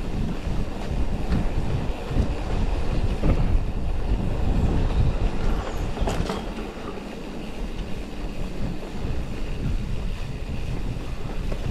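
Mountain bike riding over a dry forest trail: tyres rumbling on dirt, with the bike rattling and knocking over bumps and wind buffeting the microphone.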